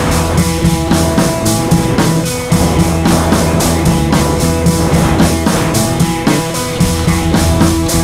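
Background rock music with drums and a steady beat.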